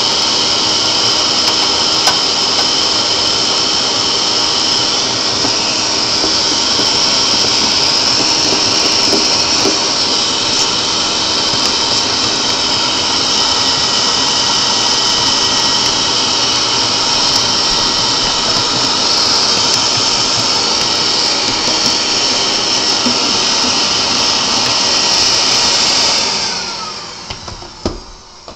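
Shop vac running steadily with a high whine as it sucks soot out of a pellet stove. It is switched off near the end and winds down.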